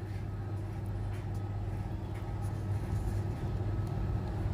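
Steady low hum of a small electric motor, even and unchanging throughout.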